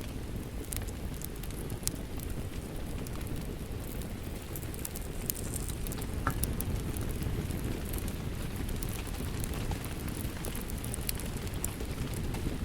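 Wood fire crackling, with scattered sharp pops, over a steady low rush of rain.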